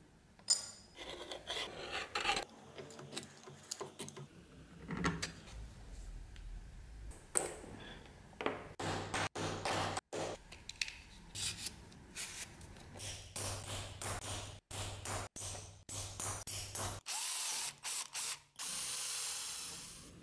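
Hand-tool work on small metal plates: a run of short scrapes, taps and clicks. Near the end a power drill bores through a thin metal plate into a wooden block, in a few short starts and then one steady run.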